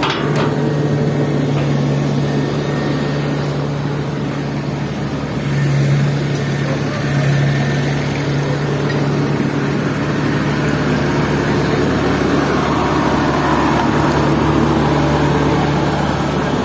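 Kubota DC70 Plus combine harvester's diesel engine running steadily, with slight swells in engine speed about six and seven and a half seconds in.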